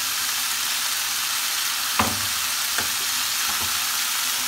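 Diced chicken sizzling steadily as it fries in a non-stick pan. A metal spoon clicks sharply against the pan about two seconds in, then twice more, lighter, soon after.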